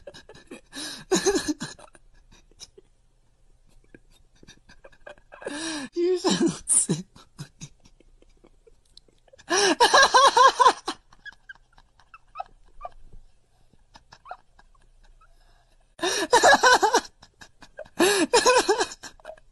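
A cat makes short bouts of voiced sound with its mouth open and tongue out. Each bout is a quick run of rising-and-falling calls, five bouts in all with pauses between.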